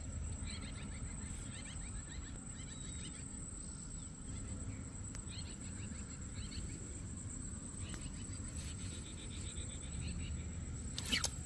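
Insects chirping outdoors in short rapid trills, repeating every second or two, over a steady high thin whine and a low steady rumble. A brief sharp sound near the end.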